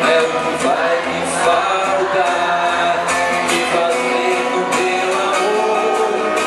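Live pop-rock song: a male singer's voice with electric guitar and band accompaniment.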